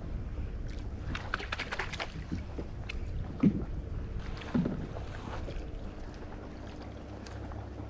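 Kayak being paddled: paddle strokes splashing, with two dull knocks around the middle, over a steady low wind rumble on the microphone.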